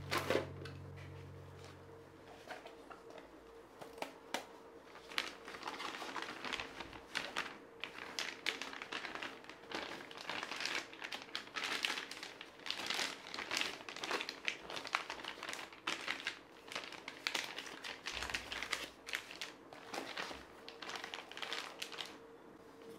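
Hands rummaging through a wicker storage basket, crinkling plastic sleeves and paper and knocking items lightly against each other as they are moved, in irregular rustles and small clicks.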